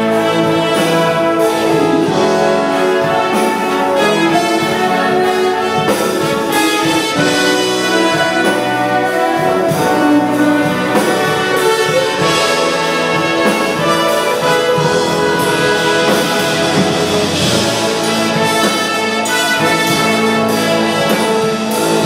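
Concert wind band playing, with brass to the fore and a steady, full sound.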